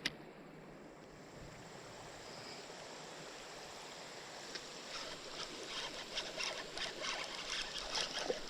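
Creek water running in an even wash, with irregular sharp ticks and splashy clicks coming more often over the last few seconds.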